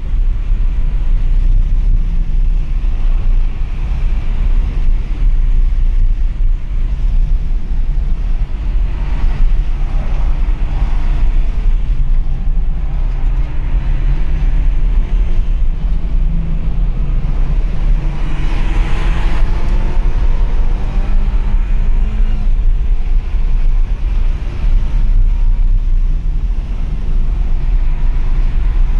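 A BMW at speed on a race track, heard from inside its cabin: a steady loud drone of engine, tyres and wind, with the engine note rising and falling a few times.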